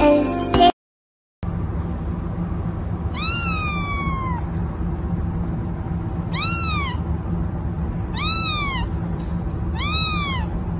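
Ginger kitten meowing four times, high calls that rise then fall, the first about a second long and the other three shorter, over a steady low background hum.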